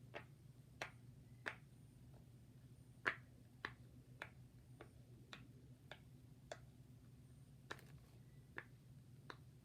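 Silicone pop-it fidget toy being popped bubble by bubble from its louder side: a series of short, sharp pops, about one every half second to second, at an uneven pace.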